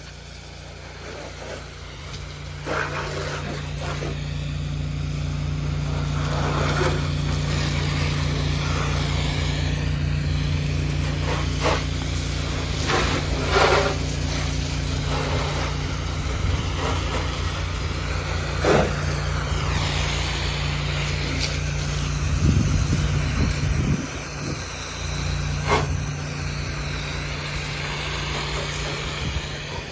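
Pressure-washing rig's engine running steadily while water hisses from the spray, wetting down the ground. A few sharp knocks break in now and then.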